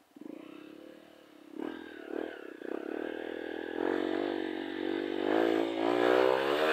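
Trail motorcycle engine: a few short throttle blips, then running steadily and growing louder, its pitch rising near the end.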